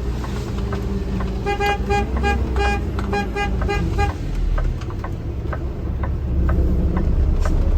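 A vehicle horn tooted in a rapid series of short beeps, about a dozen in two and a half seconds, starting about a second and a half in. A truck engine runs steadily underneath.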